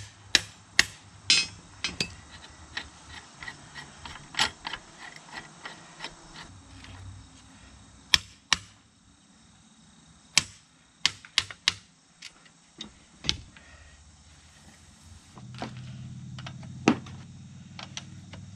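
Irregular sharp metal clinks and knocks as steel spring-compressor hooks and tools are worked onto a car's front coil spring. A low steady hum comes in near the end.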